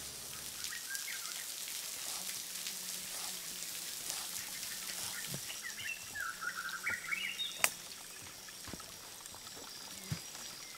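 Rainforest ambience: a steady hiss of running water with faint steady insect tones above it, series of chirping calls about two seconds in and again from about six to seven and a half seconds in, and a couple of sharp clicks near the end.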